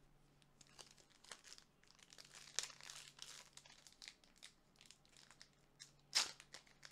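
Quiet, scattered rustling and crinkling of Pokémon trading cards and their packaging being handled, with one sharper, louder crinkle about six seconds in.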